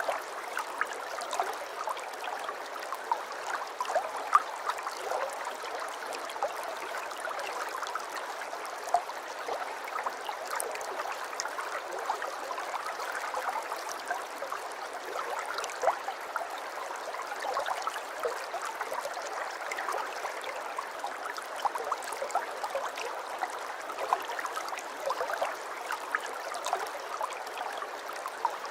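Aquarium water trickling and bubbling steadily, with many small pops and splashes.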